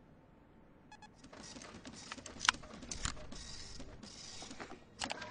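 Computer mouse and keyboard in use: irregular clicks and clatter starting about a second in, one sharper click about halfway, and quick even key clicks beginning near the end.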